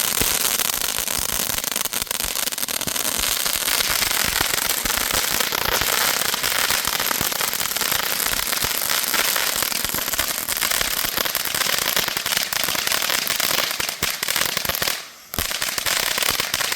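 Two small firework fountains burning together: a steady, loud hiss of spraying sparks, thick with fast crackling pops. It dips briefly near the end, then cuts off suddenly.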